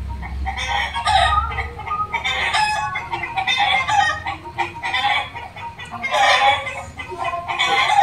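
Country chickens clucking and calling over and over, with a louder call about six seconds in.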